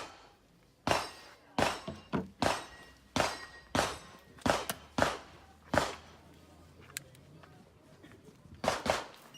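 A string of handgun shots fired at a practical-shooting pace: about a dozen sharp reports, each ringing off briefly, in quick pairs and singles over the first six seconds. After a short pause, a fast burst of shots comes near the end.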